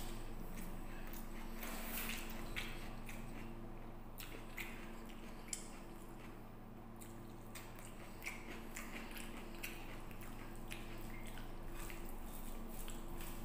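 Close-up eating sounds: wet squishing of rice and curry worked by hand on a plate, with scattered smacks and clicks of chewing. A steady low hum runs underneath.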